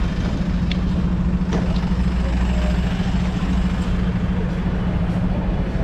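Airport apron shuttle bus engine idling: a loud, steady low hum with a constant drone.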